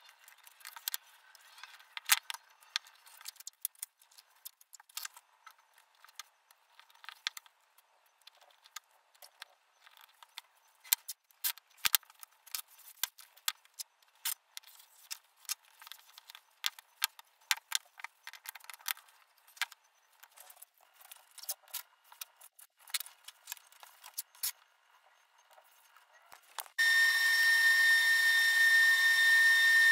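Masking tape crackling and snapping in irregular bursts as it is pulled off the roll and wrapped around a wooden strip. Near the end a louder, steady motor whine starts abruptly and carries on.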